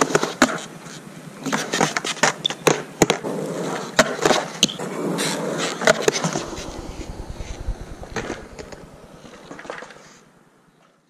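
Skateboard rolling on concrete, with many sharp clacks and knocks of the board and trucks striking the ground and a ledge edge. The sound fades out near the end.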